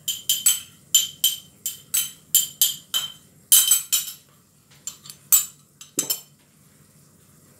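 A metal spoon clinking and scraping against a small ceramic ramekin while the last of a soy sauce, vinegar and oyster sauce mix is scraped out into the pan. Quick ringing taps come about three a second for the first four seconds, then a few more spaced out until about six seconds in.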